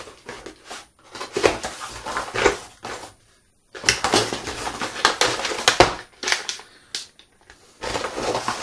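Metal wrenches clinking and their plastic packaging rustling and crackling as the set is unpacked by hand, in irregular spells with a brief silence about three seconds in.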